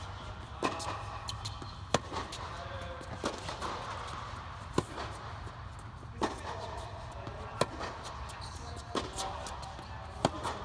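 Tennis rally: sharp racket strikes on the ball and ball bounces, about one every second and a half, on an indoor court under an air-supported dome, over a steady low hum.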